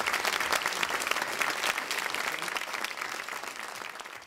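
Audience applauding, the clapping fading steadily toward the end.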